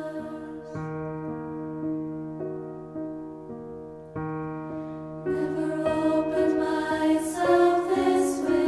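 Slow background music of sustained keyboard chords that change every second or so, growing fuller and louder about five seconds in.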